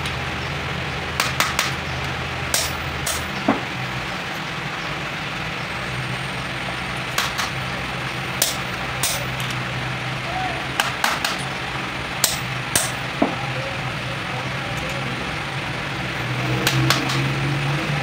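Hammer striking a punch held in pliers against the rivets of a truck clutch disc: sharp metal taps, irregularly spaced, a dozen or so, some in quick pairs. Under them runs a steady low hum.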